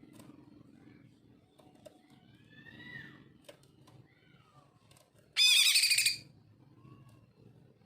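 Male green leafbird (cucak ijo) singing: soft whistled rising and falling notes, then, a little past halfway, a loud harsh rapid chatter lasting under a second.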